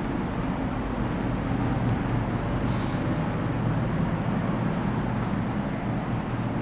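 Steady low hum and hiss of background noise, unchanging throughout.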